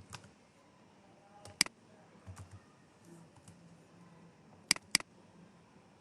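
Computer mouse clicking: a single click about one and a half seconds in, then a quick double click about three seconds later.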